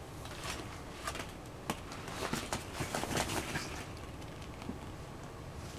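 Hollow plastic ball-pit balls clattering and tapping against each other as a toddler tosses and handles them: a run of light, quick clicks over about three seconds, then quieter.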